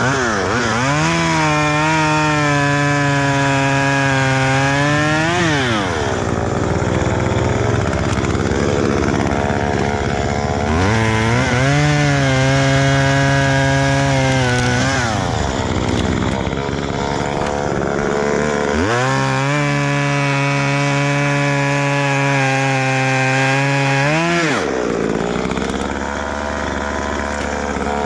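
Two-stroke chainsaw bucking wood. It makes three long cuts, each revving up to full throttle with the pitch sagging a little under load, then drops back to a lower speed between cuts.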